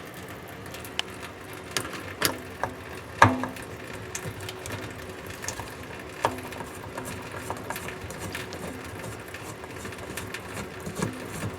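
Scattered small clicks and taps of a screwdriver and faucet parts as a two-handle kitchen faucet's handle is unscrewed and taken off, a few knocks standing out among lighter ticking.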